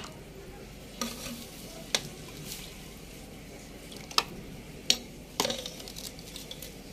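A steel spoon ladling chicken and potato curry into a ceramic serving bowl: wet spooning sounds with about five sharp clinks of the spoon against the dishes.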